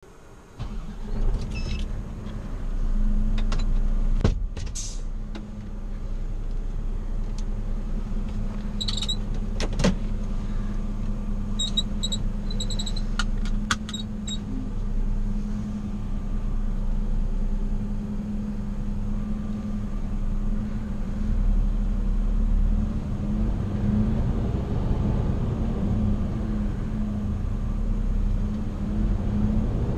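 Volvo FL truck's diesel engine running steadily, heard from inside the cab. A few sharp clicks and short high beeps come in the first half, and after about twenty seconds the engine note wavers and grows a little louder as the truck moves off.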